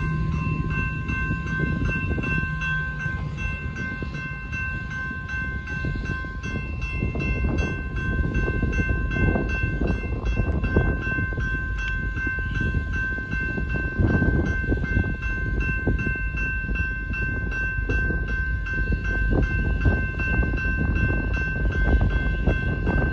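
Grade-crossing warning bell ringing steadily while the signals flash, over a continuous low rumble.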